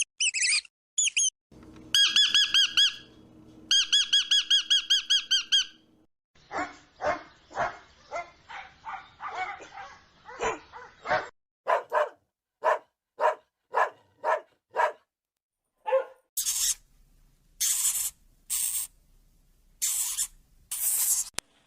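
A run of different animal calls one after another: high squeaky chirps, then quick warbling squeaks, then a long series of separate calls about two a second, and near the end a few harsh, noisy squawks.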